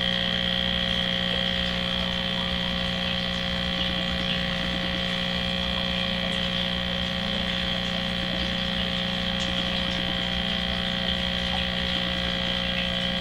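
Saltwater aquarium pumps and filtration equipment humming steadily, a constant hum made of several steady tones.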